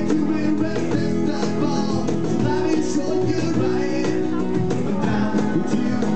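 Live acoustic band music: two strummed acoustic guitars and a hand-played cajón keeping a steady beat, with a man singing.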